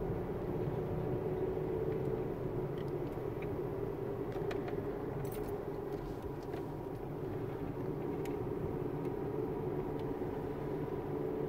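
A car driving along a paved road, heard from inside the cabin: steady engine and tyre noise, with a few faint clicks through it.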